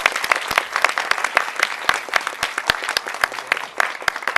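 Audience applauding: many people clapping, a dense patter of handclaps that begins to thin out near the end.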